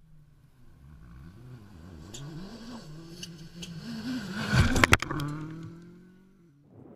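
Gravel rally car approaching at speed, its engine note rising and falling as the driver works the throttle. About four and a half to five seconds in it passes close by with a burst of clattering gravel and stones. The engine then fades away as it drives off.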